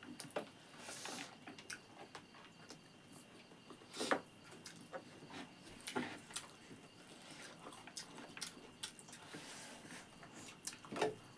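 Quiet eating sounds of people eating rice and chicken curry with their hands: soft chewing and lip smacks, with a few sharper clicks about four, six and eleven seconds in.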